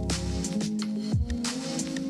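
Background instrumental beat music: held synth chords over a deep kick drum that drops in pitch, with short hi-hat ticks.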